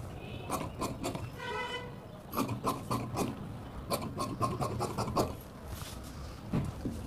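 Large tailoring shears cutting through blouse fabric: a run of quick, crisp blade snips, thickest between about two and a half and five seconds in. A short high-pitched tone sounds about a second and a half in.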